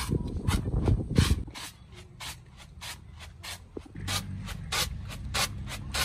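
Dry grain being winnowed in a woven basket tray: the grain hisses and rattles against the basket with each toss and shake, about three or four swishes a second. A low rumble runs under it for the first second and a half or so.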